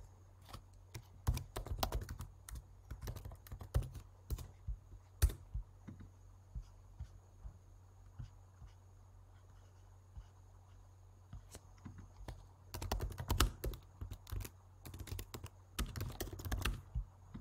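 Typing on a computer keyboard in bursts. A run of keystrokes comes at the start and scattered single clicks follow. After a quiet stretch in the middle, two quick runs of typing come near the end.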